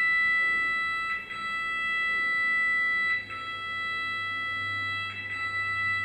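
Music: a sustained, high, organ-like electronic tone that breaks off and starts again about every two seconds, with a low hum coming in about halfway.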